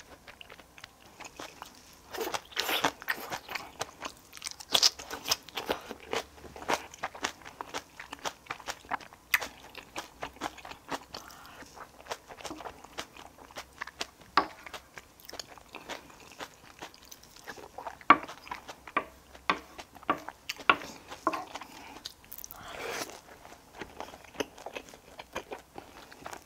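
A person eating curry and rice close to the microphone: chewing and crunching bites, with many short clicks scattered through.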